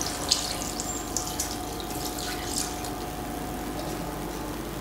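Thin coconut milk being poured into a hot pan of sautéed chicken: a steady pouring sound of liquid filling the pan, with a few faint light ticks in the first few seconds.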